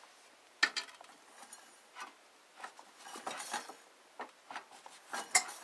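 Irregular light metal clicks and clinks from a mini chopper's cable-operated rear disc brake: the caliper's lever arm and return spring being worked.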